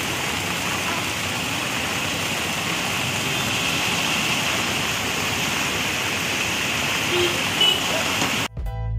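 Steady noise of heavy rain and traffic, with tyres splashing through water standing on a flooded road. Near the end it cuts off suddenly into music with a beat.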